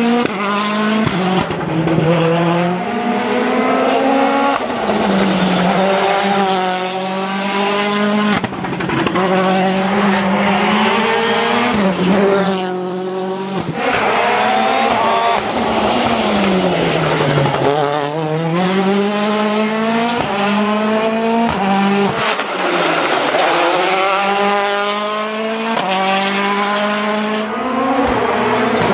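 Citroën DS3 WRC's 1.6-litre turbocharged four-cylinder rally engine being driven hard, revving up through the gears with sudden drops at each shift, then falling away under braking and downshifts before climbing again, over and over.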